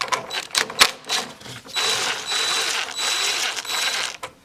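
Cordless ratchet running for about two and a half seconds with a steady whir and a thin high whine, loosening a battery terminal nut, after a few clicks and knocks as the socket is fitted.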